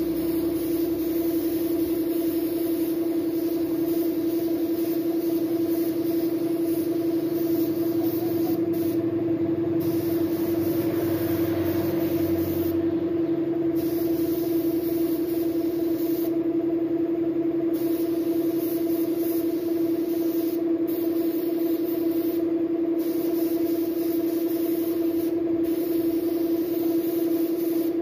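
Air-fed gravity spray gun hissing as it sprays colour paint, the hiss breaking off briefly about six times, over a loud steady mechanical hum.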